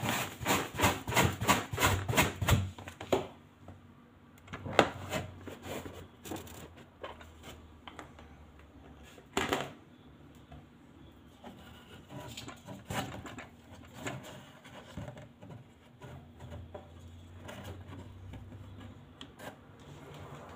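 Rapid rubbing strokes, about four a second for the first three seconds, then scattered knocks, rubs and clicks of objects being handled close to the microphone.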